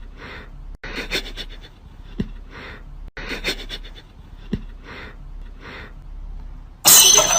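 A pet panting in soft, noisy breaths, roughly one a second, broken twice by brief dropouts. Near the end a much louder, busier sound cuts in abruptly.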